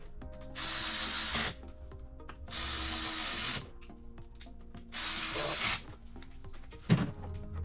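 A power tool running in three short bursts of about a second each, with a sharp knock near the end, over background music.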